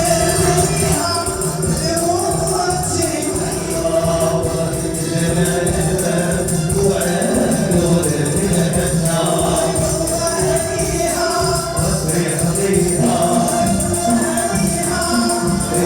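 Moroccan wedding music: several voices singing together over tambourines and hand percussion, keeping a steady beat.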